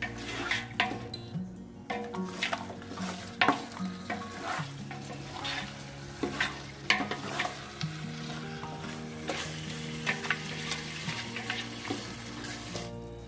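A spatula stirring and scraping thick mutton masala in a large metal pot, with repeated clinks against the pot's side over a sizzle of the mixture cooking on the heat. Soft background music with held low notes runs underneath.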